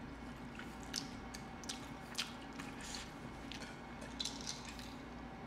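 Quiet eating and drinking sounds: scattered soft clicks and smacks of chewing and sipping from a glass, over a faint steady hum.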